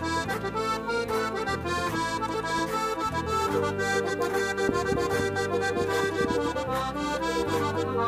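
Background instrumental folk music with a melody over a bass line that moves in regular steps.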